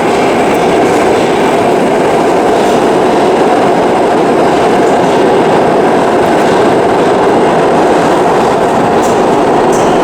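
New York City subway train running through the station, a loud, steady noise that holds evenly throughout.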